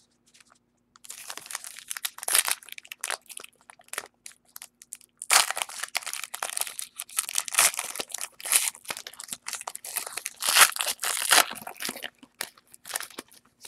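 Plastic trading-card packaging crinkling and tearing under the hands as a card box is opened. The crackling runs in irregular handfuls, with a short lull about four seconds in.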